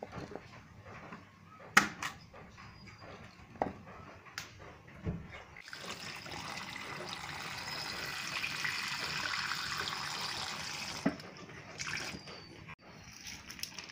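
Tap water running into an aluminium pot of cut cassava pieces in a sink, a steady splashing from about six seconds in to about eleven. Scattered light knocks come before and after it as the pot and pieces are handled.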